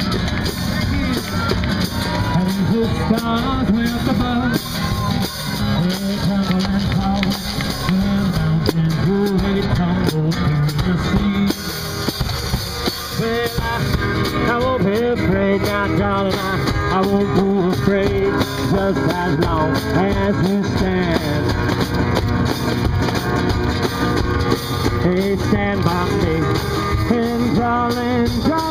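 One-man band playing a tune: strummed acoustic guitar over a steady drum beat, with a melody line carried on top.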